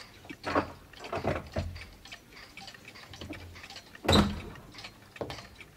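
Clocks ticking in a watchmaker's shop, with a few knocks, the loudest about four seconds in.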